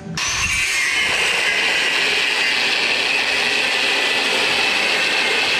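Angle grinder with a cutoff wheel cutting steel. It starts suddenly, then holds a loud, steady high whine over the hiss of the cut.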